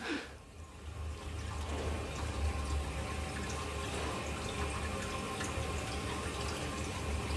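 Toilet flushing: water rushing steadily, building up about a second in.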